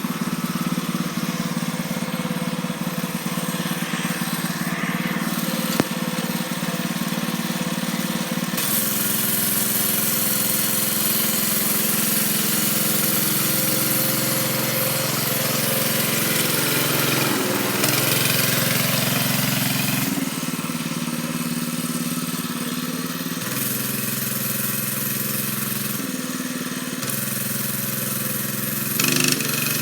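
An engine running steadily, its tone shifting several times as it goes.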